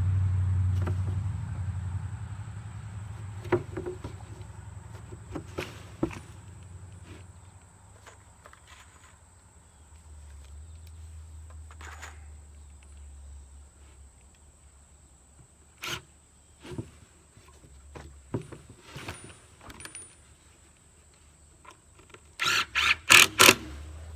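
Scattered knocks and clicks of handwork, then near the end a quick run of about five loud, sharp strikes. A low hum fades out over the first few seconds.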